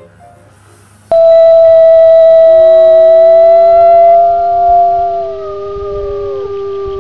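Wolves howling: a loud, long howl starts abruptly about a second in, a second, lower howl joins it a little later, and the first one slides down in pitch near the end.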